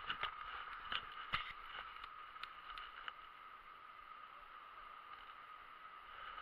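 Steady rush of a fast-flowing river. Several irregular sharp clicks and knocks sound in the first three seconds.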